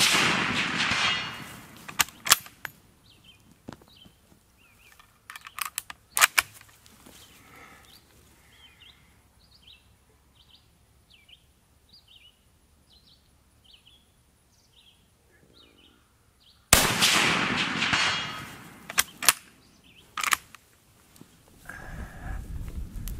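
8mm 1886 Lebel rifle fired twice, once right at the start and again about 17 seconds in, each report echoing out over about a second. Between the shots come the metallic clicks of the bolt being worked, and small birds chirp in the quiet stretch.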